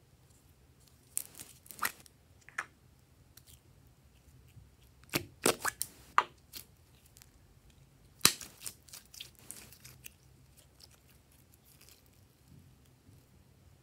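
Glossy slime being squeezed out of a small plastic capsule by hand: scattered sticky clicks and crackles, thickest around the middle, with the loudest snap a little past halfway.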